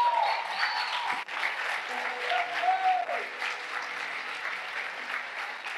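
Church congregation applauding, with a few voices calling out over the clapping; the applause slowly dies down.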